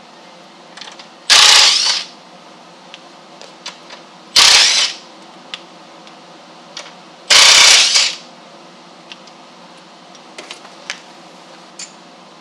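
Power drill running in three short bursts about three seconds apart, backing screws out of metal gate hinges, with light clicks of the hinges and screws being handled between the bursts.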